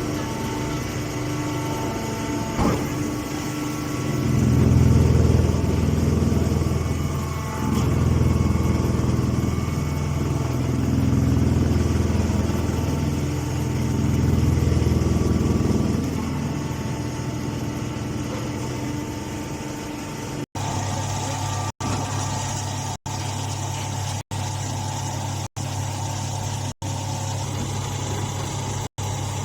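Compression hay baler running with a steady machine hum. The low hum swells and eases four times in the first half, as if under repeated load. In the last third the sound cuts out briefly about once a second.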